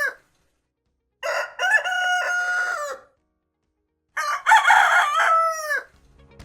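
Rooster crowing twice, each cock-a-doodle-doo lasting about two seconds and ending on a falling note, with the tail of an earlier crow at the very start.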